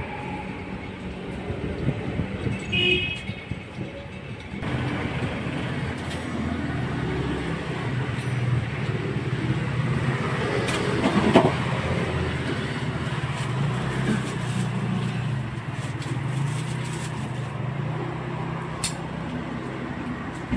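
Steady road traffic noise with a vehicle engine running, swelling louder about eleven seconds in.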